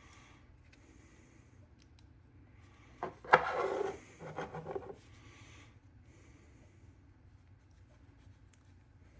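Small counterweight parts and the plastic sleeve being handled. A sharp click about three seconds in is followed by a second or two of rubbing and scraping, and then a quiet room.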